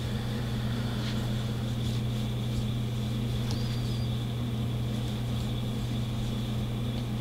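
Steady low electrical hum with a faint, high, steady whine above it.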